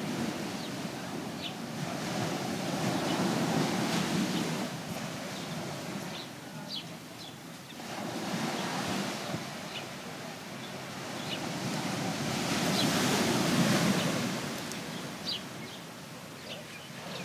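Ocean surf washing over a rocky lava shoreline, swelling and falling back in surges about every five seconds, with faint short high chirps scattered through it.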